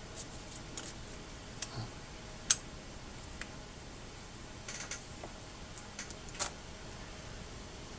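Scattered small clicks and taps of chromed fishing-reel parts being handled, the loudest about two and a half seconds in and another about six and a half seconds in.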